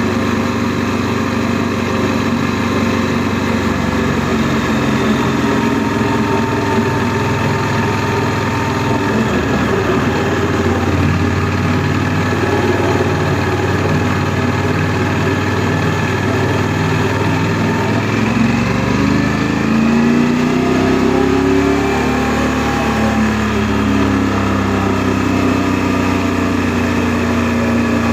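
Honda NC700S's 670 cc parallel-twin engine running while the motorcycle is ridden. About two-thirds of the way through, the engine note climbs in pitch as it accelerates, then holds steady.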